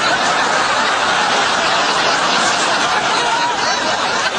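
Water splashing steadily into a ceramic urinal.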